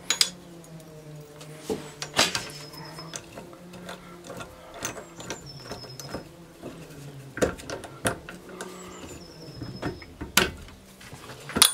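Drill press keyed chuck being tightened by hand and with the chuck key onto the shaft of a wooden sanding drum: a string of irregular sharp clicks and rattles, with a faint low steady hum underneath.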